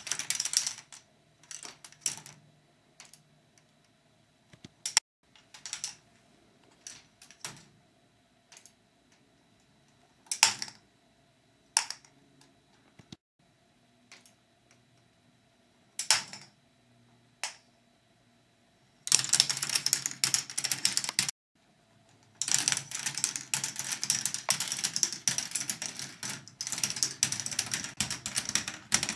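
K'nex ball machine running: plastic balls clicking and rattling along plastic track, in scattered bursts at first. About two-thirds in the clatter becomes dense and continuous, pausing briefly, with a faint steady motor hum underneath.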